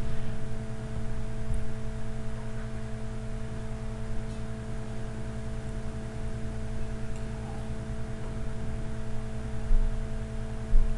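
Steady electrical hum made of several constant tones, over faint hiss from the recording setup, with a few low bumps near the end.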